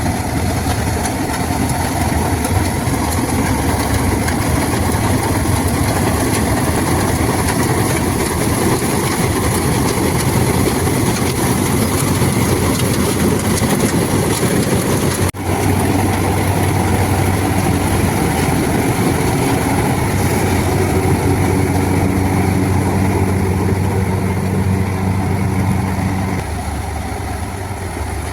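Combine harvester's heavy diesel engine running steadily at a loud, even level. About halfway through it breaks off for a moment and resumes with a steadier hum, which drops in pitch near the end.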